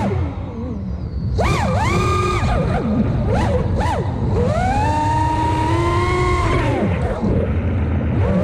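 FPV racing quadcopter's brushless motors and propellers whining. The pitch swoops up and down with the throttle and rises to hold high for a couple of seconds midway, over a steady low rush of air.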